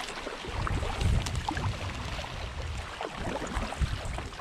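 Dagger Katana 10.4 hard-shell kayak being paddled: water splashing and lapping at the bow, with irregular drips and splashes from the paddle strokes. Wind buffets the microphone with an uneven low rumble.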